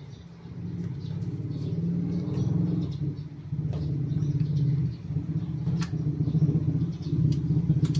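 A motor vehicle's engine running close by: a low rumble that builds over the first second and then holds steady. A couple of sharp clicks sound over it.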